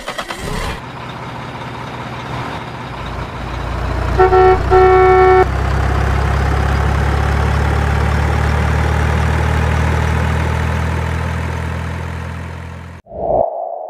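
Dubbed-in heavy truck sound effect: a diesel truck engine running, building up and then holding steady, with two horn honks about four and five seconds in. The engine cuts off suddenly near the end, followed by a short fading tone.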